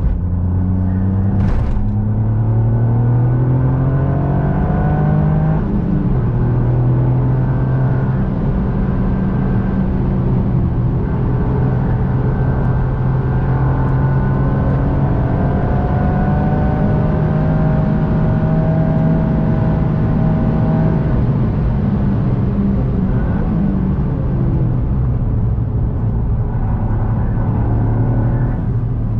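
Toyota GR Yaris's turbocharged three-cylinder engine under hard acceleration on track, rising in pitch, with an upshift drop about five and a half seconds in. It then holds a long, slowly climbing pull, eases off about three-quarters of the way through and picks up again near the end.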